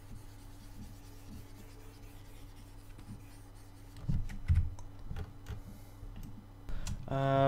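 Faint desk noise from a computer mouse being used: scratchy sliding and small clicks over a steady low hum, with a couple of dull low knocks about four seconds in.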